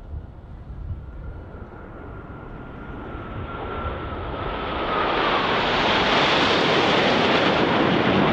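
Jet engines of a formation of F/A-18 Super Hornets flying past, the noise growing steadily louder and loudest over the last three seconds. A thin whine drops slightly in pitch about four seconds in.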